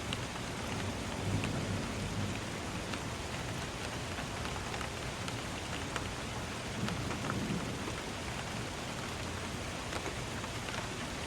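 Steady rain in a city, with scattered sharp drop ticks over an even hiss. Thunder rumbles low twice, about a second in and again around seven seconds in.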